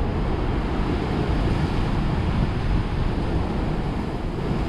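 Steady surf washing against shoreline rocks, with wind buffeting the microphone.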